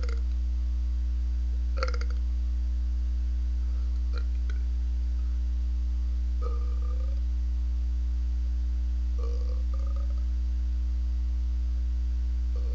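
A man belching repeatedly: short burps in the first few seconds, then two longer, drawn-out burps with a slightly rising pitch in the second half. A steady low electrical hum runs underneath.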